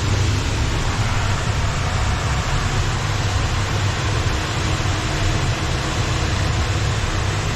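Steady rumble and hiss of wind and motion on an open chairlift. A faint steady hum joins about halfway through.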